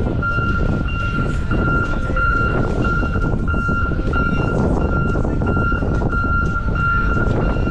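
Reversing alarm on a heavy vehicle beeping repeatedly, over a low engine rumble and wind on the microphone.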